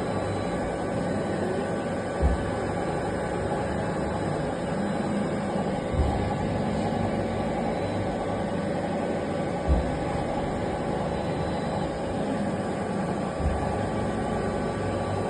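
Colchester MultiTurn 2000 CNC lathe running with a steady mechanical hum carrying a few steady tones, with a low thump about every three to four seconds.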